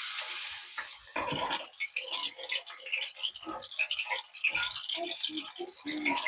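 Water splashing and dripping in short, irregular bursts, with scattered small knocks and clinks.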